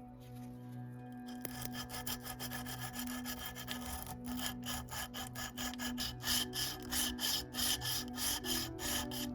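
Rhythmic scraping strokes of a hand tool such as a saw or file working a workpiece, starting about a second and a half in and going at roughly three strokes a second.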